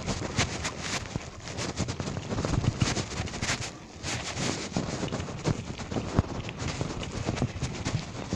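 Bicycle rattling and knocking as it rides over a bumpy, wet dirt road, with many irregular knocks and a steady rough noise. Briefly quieter about four seconds in.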